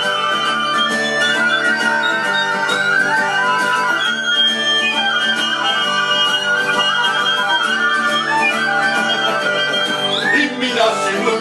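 Live band playing an instrumental passage: several small wind instruments, among them a plastic pipe and a harmonica, hold a shrill melody with long high notes over a guitar. Near the end the texture breaks up and a voice comes in.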